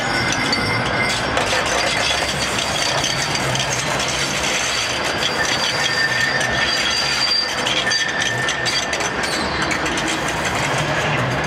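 Manchester Metrolink tram running slowly past at close range: a steady rumble of wheels on rail with many small clicks and rattles, and a faint high whine over it.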